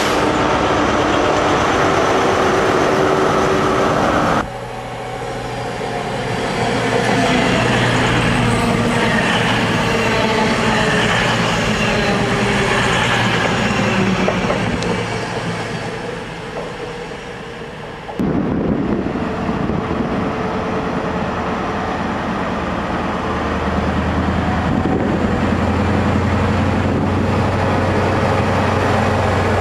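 Class 43 HST power cars' re-engined MTU diesels running at the platform, a steady low engine hum that changes abruptly twice as the shot changes. From about two-thirds of the way through, the low engine note grows louder as a power car's train moves along the platform.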